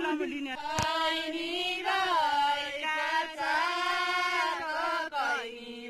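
Women's voices singing a Deuda folk song unaccompanied, in long held, wavering notes.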